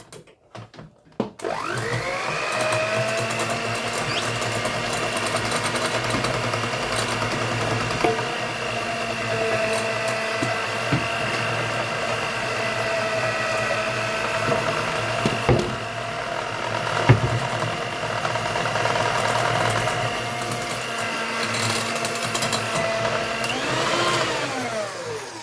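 Electric mixer beating flour into cake batter: the motor spins up about a second in and runs steadily with its beaters clicking now and then, then speeds up briefly and winds down near the end.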